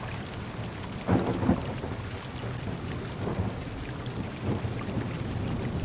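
Heavy rain on a car's windows and body, with thunder rumbling. A louder rumble comes about a second in.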